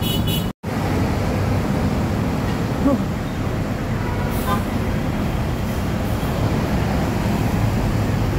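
Heavy city traffic: large intercity coaches and cars crawling past, engines running steadily. The sound drops out for an instant about half a second in.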